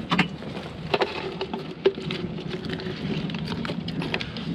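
Scattered clicks and knocks of a bait net and a plastic scoop being handled against a fiberglass boat deck, over a steady low hum.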